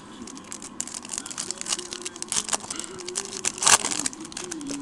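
Foil wrapper of a 2007 Upper Deck Elements baseball card pack crinkling and tearing as it is ripped open by hand, with a run of small crackles and one sharp, loud rip about three and a half seconds in.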